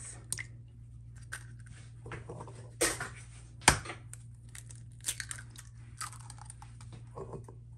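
Eggs cracked by hand into a glass bowl: a few sharp taps of eggshell and glass, the sharpest about three and a half seconds in, with the crunch of shell breaking apart. A steady low hum runs underneath.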